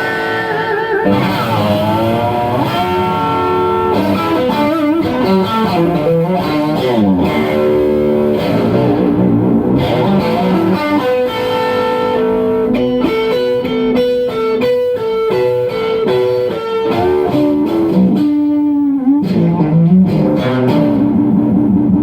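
Electric guitar played through a tube guitar amplifier: a lead line of sustained notes with string bends, and a stretch of quick repeated notes about halfway through.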